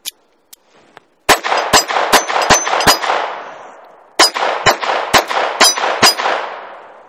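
Ruger LCP II .22 LR pistol firing two strings of about five shots each, roughly two shots a second, with a short pause between the strings and an echo trailing off after each string.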